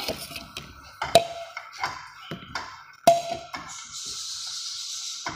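Metal utensil knocking against a frying pan as ground nuts are tipped in, with two sharp ringing taps, about a second in and about three seconds in, among lighter clicks. A steady hiss follows near the end.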